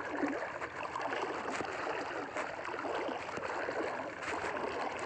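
Shallow sea water sloshing and lapping close to the microphone: an even rushing hiss with many small splashes.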